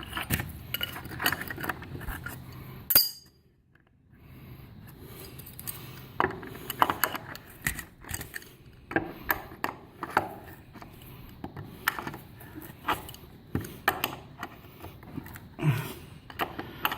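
Metal wrench clinking and clicking against a nut as the nut is tightened down on a lag bolt, in irregular small strokes. There is a sharper knock about three seconds in, followed by a second of near silence.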